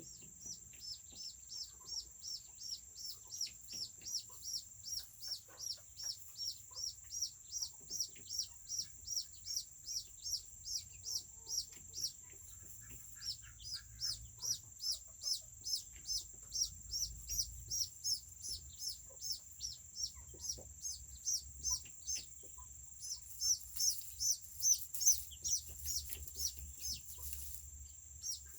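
Serama chicks peeping, short high peeps repeated in a steady rhythm of about two to three a second. The peeping pauses briefly near the middle and gets louder and busier near the end.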